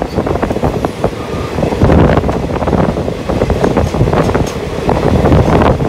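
Indian Railways passenger coaches passing close at speed: a loud, steady rumble with a rapid, irregular clatter of wheels on the rails, and wind buffeting the microphone.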